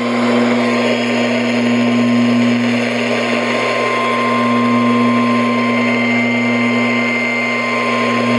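Emergency Alert System attention signal: a harsh, steady two-tone alarm that starts suddenly and holds for about eight seconds, announcing a severe thunderstorm warning. A steady low electrical hum runs beneath it.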